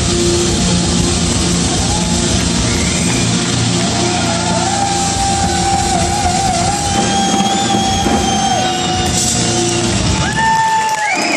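Live rock band playing in a large hall, with guitar, drums and singing; the band's low end cuts out about ten seconds in as the song ends.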